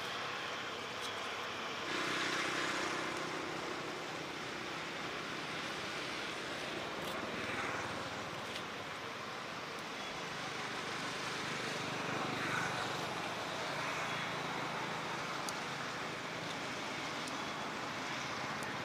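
Steady outdoor background noise, an even rushing hiss with no clear source, swelling briefly about two seconds in.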